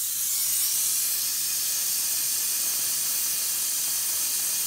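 Jeweler's gas torch burning with a steady hiss, its hot flame welding platinum wire into a ring.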